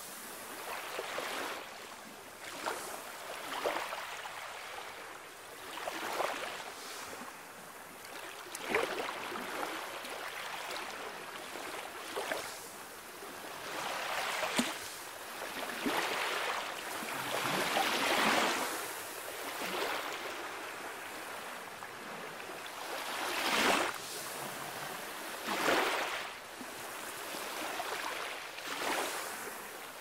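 Calm sea waves breaking and washing ashore in repeated surges, one every couple of seconds, with a few louder washes in the later part.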